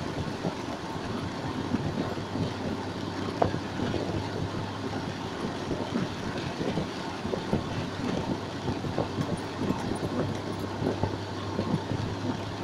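Steady noise of a heavy rainstorm and running floodwater, full of small crackling splashes, with a low steady hum underneath.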